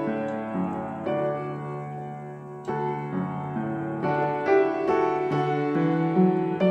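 Background piano music, single notes and chords struck one after another.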